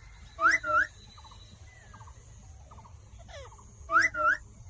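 Pet parrot calling: two loud, sharp two-note squawks about three and a half seconds apart, with faint short chirps between them.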